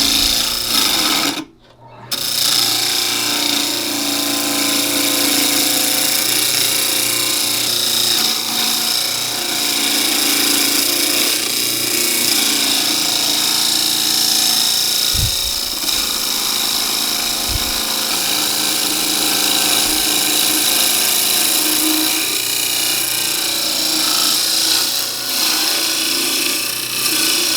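A wood lathe spinning a cedar block while a turning tool cuts into it, a steady hissing, scraping cutting noise as the block is roughed down to round. The sound breaks off briefly about two seconds in.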